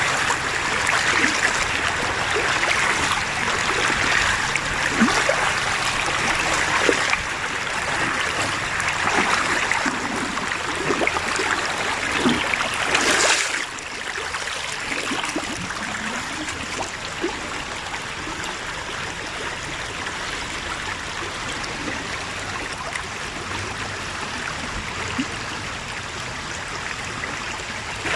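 Stream water running over rocks: a steady rushing with gurgles and trickles. It drops to a quieter, smoother flow just after halfway through.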